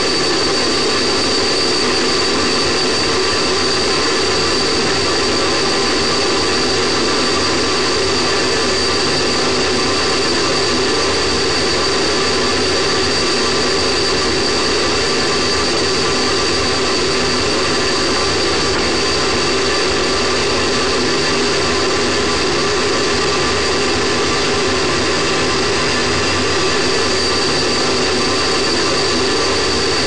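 Space Shuttle solid rocket booster burning at full thrust during ascent, heard through a camera mounted on the booster itself: a loud, steady, dense rush of noise with a steady high tone running through it.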